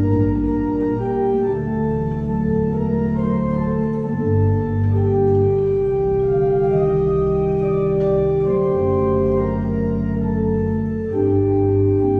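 Church pipe organ playing a slow hymn in sustained chords, the notes held long and the harmony shifting every second or two.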